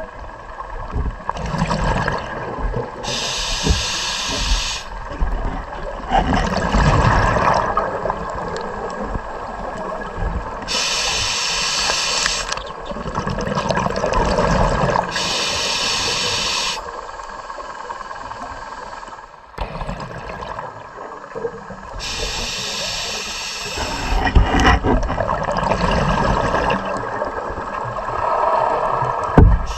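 Scuba diver breathing through a regulator: hissing inhalations alternating with bursts of exhaled bubbles, one breath every several seconds.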